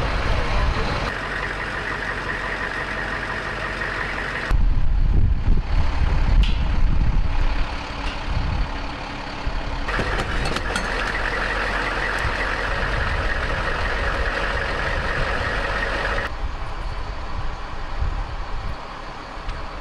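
Truck engines running and driving, in several cut-together shots: a steady whine alternates with stretches of deep rumble, each changing abruptly.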